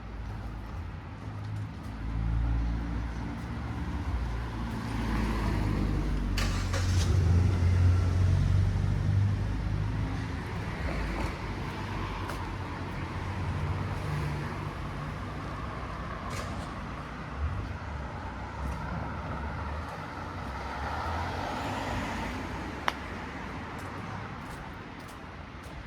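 Street traffic: motor vehicles running past, with engine rumble that swells about a third of the way in and then eases off, and a few sharp clicks.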